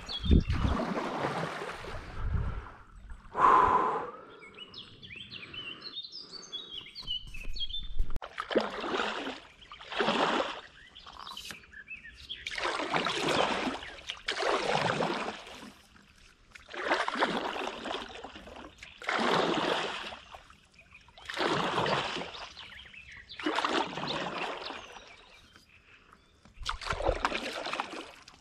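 Stand-up paddle board paddle dipping and pulling through slow river water, a whooshing splash every two to three seconds. Birds chirp between strokes, clearest a few seconds in.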